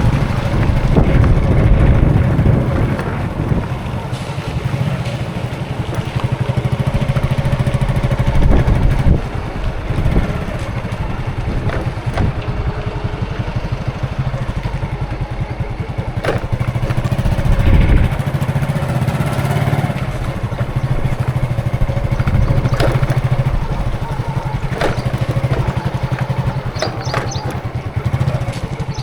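Road traffic, with the engines of motor vehicles running steadily as they pass and swelling louder now and then. There are a few short sharp clicks, and a quick run of high beeps or chirps near the end.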